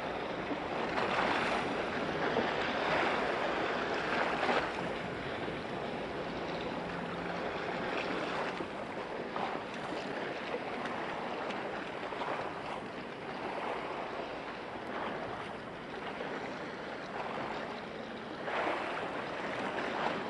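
Waves washing against the shore, rising and falling in surges over a steady hiss, with a few stronger surges in the first five seconds and another near the end.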